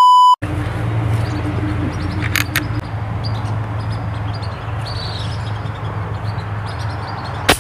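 A brief steady test-tone beep, then steady outdoor background with a low hum and a few faint bird chirps. About seven and a half seconds in comes a single sharp crack, the shot of a scoped toy rifle fired at a duck on the water.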